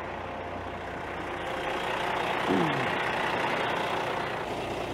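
The Cummins ISX15 inline-six diesel of an International ProStar semi truck idling steadily. It has dropped back to normal idle after finishing a forced DPF regeneration. It grows somewhat louder over the first two seconds or so, and a short falling tone comes about halfway through.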